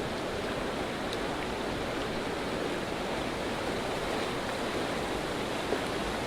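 Small mountain creek running steadily over its bed, a constant rush of flowing water.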